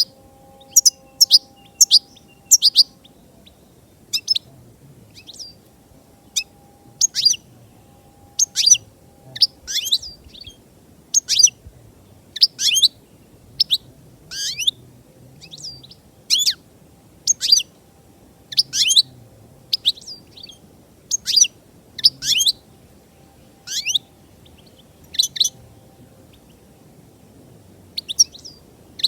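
European goldfinch calling: short high chirps, each a quick downward sweep, repeated about once or twice a second with brief pauses.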